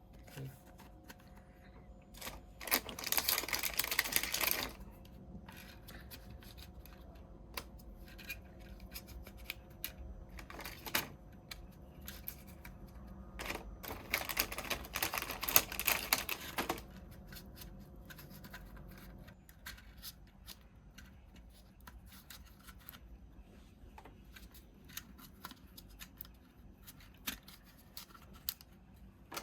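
Packaging being handled during an unboxing: two loud spells of rustling plastic or paper, about two and three seconds long, with scattered small clicks and taps of parts and box being handled in between.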